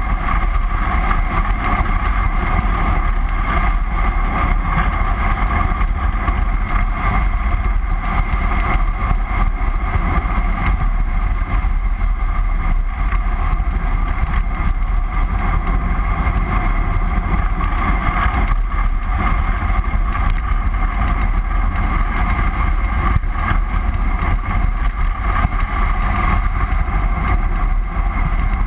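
Steady wind buffeting a handlebar-mounted GoPro's microphone as a bicycle rolls fast downhill on asphalt, a constant deep rumble with an even rush over it.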